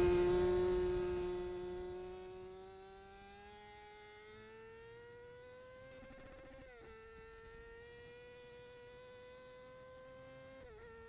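Motorcycle engine running at high, steady revs, its pitch rising slowly. It fades out over the first three seconds and then carries on faintly, with a brief sharp dip in pitch about two-thirds of the way in and twice more near the end.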